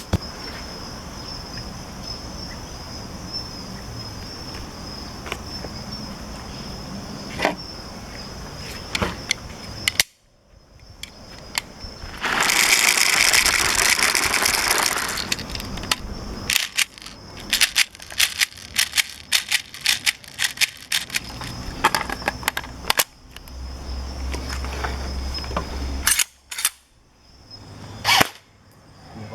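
Airsoft gun shots and BB impacts: repeated sharp clicks, a few at first and many in quick succession later. A steady high insect drone runs under them, and a few seconds of loud hissing come in the middle.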